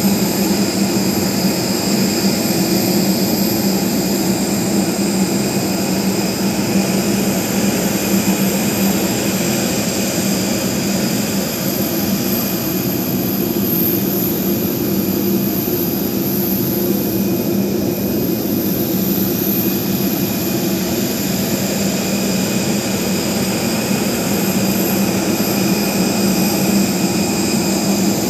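Jet airliner turbines running steadily: a constant hum with several high-pitched whining tones above it, unchanging throughout.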